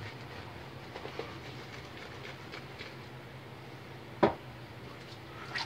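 Ever Ready lather catcher safety razor scraping through lathered stubble in short strokes, over a steady low hum. One sharp knock about four seconds in.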